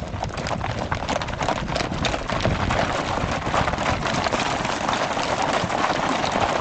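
Recorded sound of a herd of horses galloping, a dense, steady clatter of many hoofbeats.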